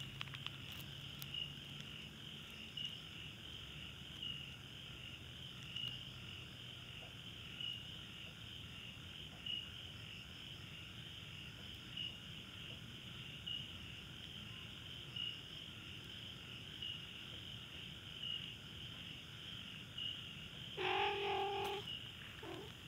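Steady high-pitched chirring of night insects, pulsing faintly about every second and a half. Near the end a louder animal call of about a second cuts in, followed by a short one.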